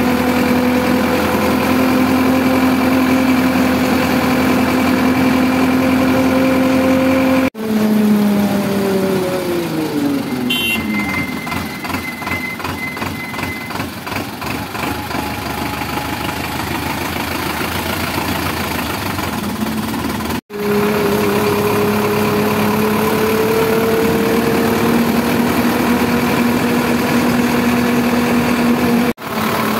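Sonalika 750 tractor's diesel engine running under way, heard from the driver's seat. Its pitch drops as it slows about a quarter of the way in, and it runs quieter for a while. It then runs steadily again and rises a little as it picks up speed, with abrupt dropouts where the recording is cut, about a quarter of the way in, two-thirds of the way in and at the very end.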